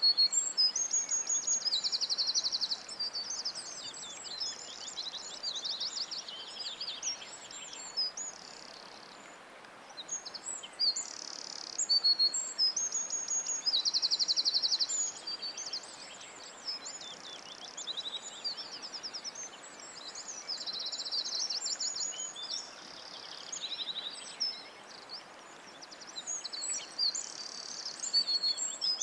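Songbird singing: phrases of high chirps, whistles and rapid trills, a second or two each with short pauses between, over a faint steady hiss.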